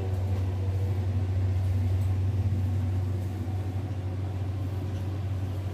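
Steady low hum with a faint hiss underneath: room tone.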